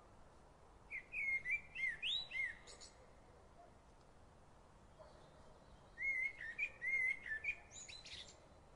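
A songbird singing two short phrases of quick chirping notes, some sliding up in pitch, about five seconds apart, over a faint steady background.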